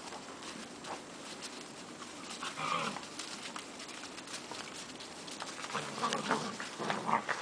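German Shepherd puppies playing, with faint scuffling and a short puppy whimper about two and a half seconds in. The play noises pick up near the end.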